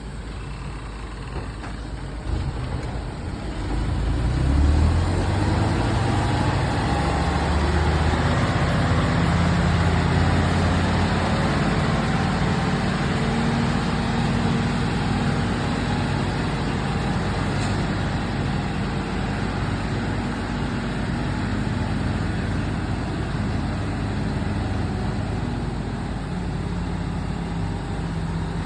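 Heavy diesel logging truck engine running under an 18-ton load. It revs up and gets louder a few seconds in, then keeps pulling hard and steady.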